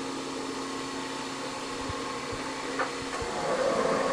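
Klopp 425 metal shaper running between cutting strokes, with a steady motor and gear hum while the tool is clear of the work. There is a light click about three seconds in. Near the end the sound grows louder as the next stroke starts.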